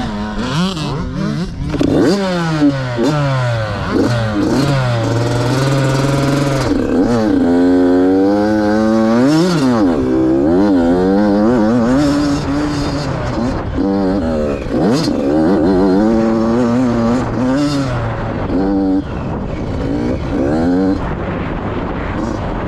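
Yamaha YZ85 two-stroke dirt bike engine revving hard and changing gear, its pitch climbing and dropping over and over.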